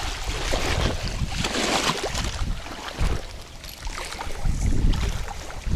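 Wind buffeting the microphone, with water splashing in the shallows at the bank.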